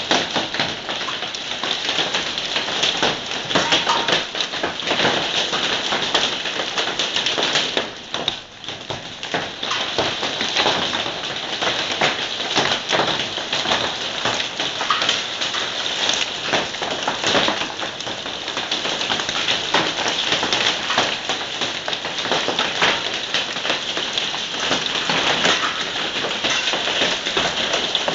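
Hailstones and heavy rain pelting hard surfaces: a dense, steady clatter of countless small impacts, easing briefly about eight seconds in.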